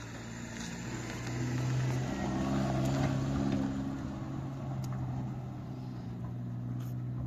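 An engine running at a steady low pitch, growing louder about one and a half seconds in and easing a little after about four seconds, with a couple of faint clicks later on.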